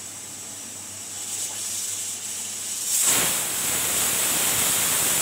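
Pressure cooker's weighted vent valve lifting and releasing steam. The hiss builds from about a second in and turns loud about three seconds in. This is the cooker's whistle, which is counted to time the cooking.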